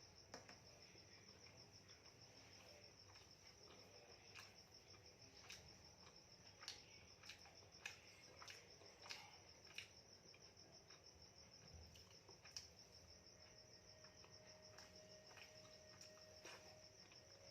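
Faint, steady high-pitched trill of crickets, unbroken throughout, with scattered soft clicks and ticks over it.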